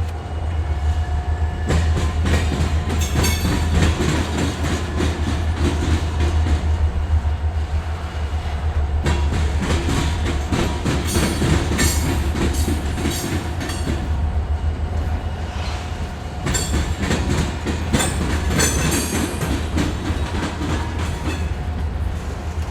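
Freight train rolling past: a steady deep rumble with the repeated clicking and clanking of wheels over rail joints and crossings.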